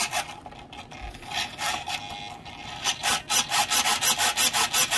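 Micro servo whirring as it swings the boat's rudder back and forth through the steering rod, in quick short strokes that settle into about five a second in the second half.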